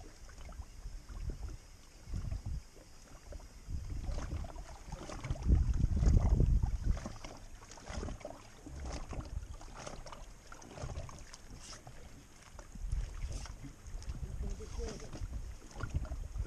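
Wind buffeting the microphone in irregular gusts, strongest about six seconds in, over water lapping.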